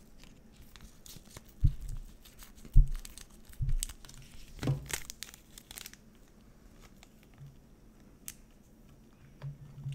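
Small plastic packet crinkling as it is snipped open with scissors and handled, with several sharp knocks on the table in the first half.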